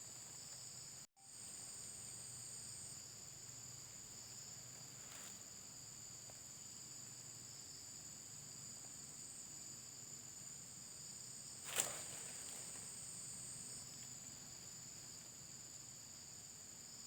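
Steady, high-pitched chorus of insects chirring along the creek, with a brief dropout about a second in and a sharp click near the end of the second third.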